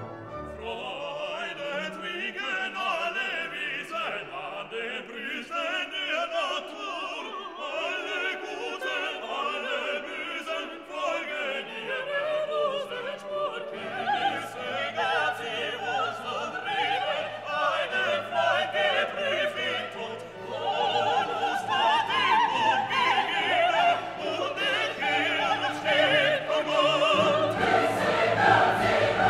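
Background music: operatic classical singing with orchestra, the voices wavering with vibrato and swelling louder in the second half.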